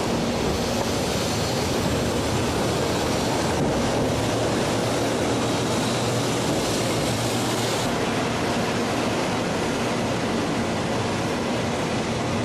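Steady rushing rumble of a Shinkansen train running at speed, with the hiss easing slightly about eight seconds in.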